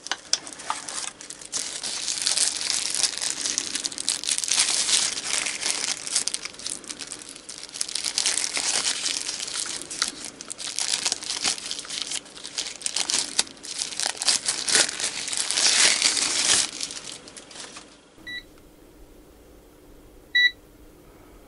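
Plastic wrapping crinkling and rustling as a digital multimeter is unwrapped by hand. The crinkling stops at about eighteen seconds, and then the Venlab VM-200M multimeter gives two short high beeps about two seconds apart.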